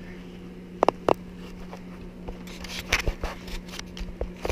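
Handling noise from hands on a small body camera: two sharp clicks about a second in, then soft knocks and rustling near the end, over a steady low hum.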